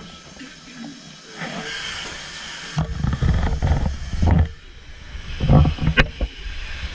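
Breathing through chamber breathing masks: several heavy breaths rush and hiss through the mask valves. There is a sharp click near the end.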